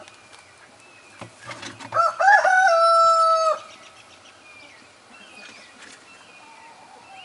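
A rooster crows once, starting about two seconds in: a few short rising notes, then a long held note of about a second and a half that cuts off. Faint chirps of small birds come before and after it.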